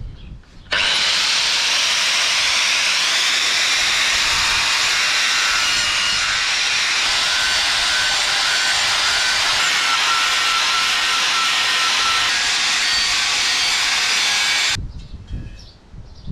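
Makita angle grinder with a flap disc grinding rust off a steel spade blade down to bare metal, a steady high grinding that starts suddenly about a second in and stops near the end.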